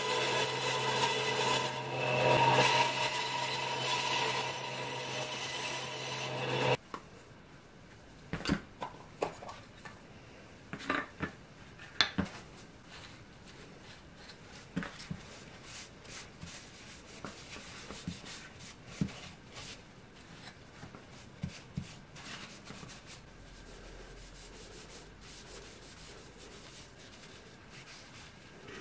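A bandsaw runs steadily for about the first seven seconds, then cuts off suddenly. After that come faint rubbing and scattered light knocks of a cloth and paper towel wiping finish onto a wooden mallet.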